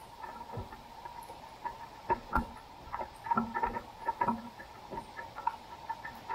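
An irregular series of short, squeaky chirps over a steady hiss of floodwater and rain, with a few soft low thumps.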